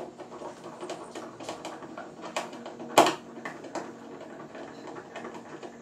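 Irregular light clicks and taps of a screw and plastic mount being handled on a plastic kayak hull, with one sharper knock about three seconds in, over a low steady hum.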